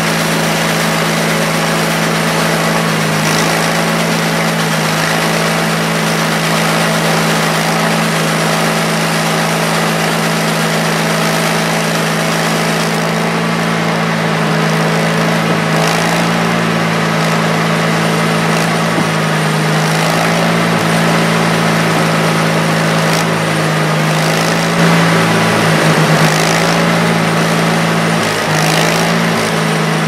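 Mighty Mite band sawmill's engine running steadily under load as its band blade cuts a slab off a yellow cedar log.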